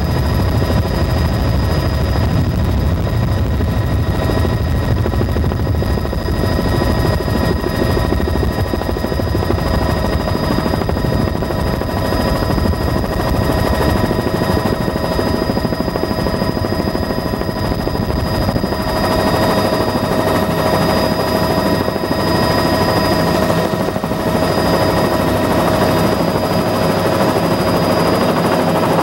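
Aircraft engine noise heard from inside the cabin: a steady, loud drone with a steady whine over it. The heavy low rumble eases about halfway through, as the aircraft is down on the tarmac.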